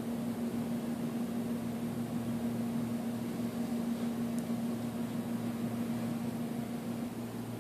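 Room tone: a steady low hum at one pitch under an even hiss, with no other sound.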